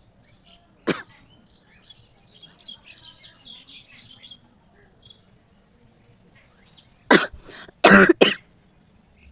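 Person sneezing: one sharp sneeze about a second in, then three in quick succession near the end, with birds chirping faintly in between.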